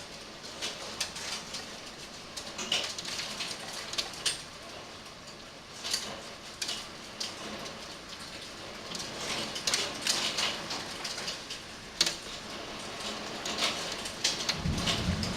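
Heavy rain with large hailstones striking hard surfaces: a steady hiss of rain broken by frequent, irregular sharp cracks of hail impacts. A low rumble comes in near the end.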